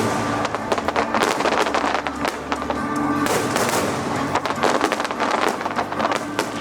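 Fireworks bursting and crackling in rapid, dense succession, over music with held tones.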